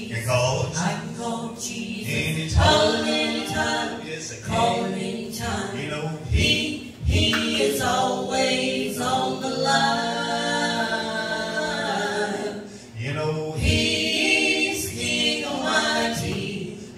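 A small gospel group singing a song in harmony through a PA, with several long held notes and short breaks between phrases.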